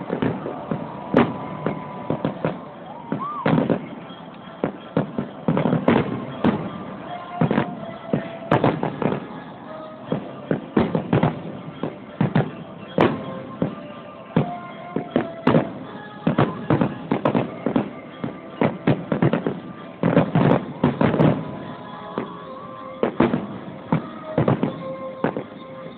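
Fireworks finale: a rapid, near-continuous barrage of aerial shell bursts, several bangs a second, one after another with no real pause.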